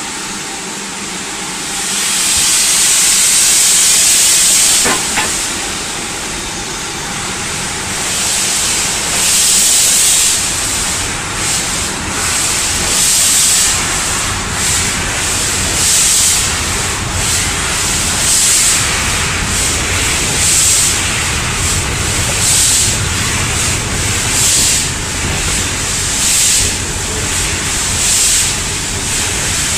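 Steam locomotive heard from on board as it moves off: a long hiss of steam for a few seconds, then slow, regular exhaust chuffs about every one and a half to two seconds, over a low rumble of the wheels on the rails that grows later on.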